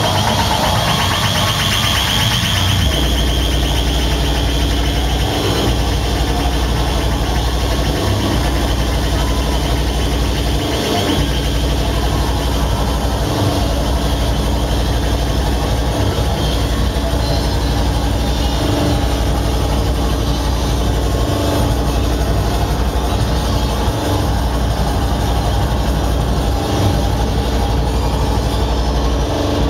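Loud distorted electronic noise music from a DJ set played over a club sound system: a heavy droning bass that cuts out briefly every two to three seconds. A high squealing tone sits on top in the first few seconds.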